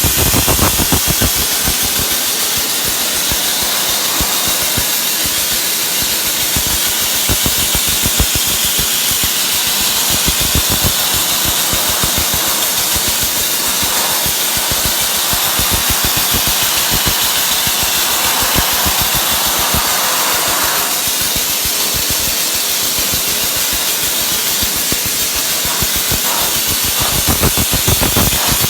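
Dry ice blasting gun at work: a loud, steady hiss of compressed air driving dry ice pellets, with a dense run of irregular clicks as the pellets strike the wood and strip paint and grime from it.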